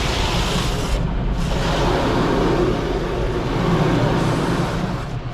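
Automatic car wash rinse: high-pressure water spraying steadily over the car, heard from inside the cabin, with a low steady hum underneath.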